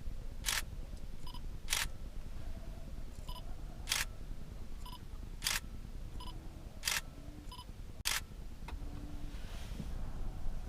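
A series of sharp clicks, about one every second and a half. Softer, ringing ticks fall in between them, over a low steady rumble.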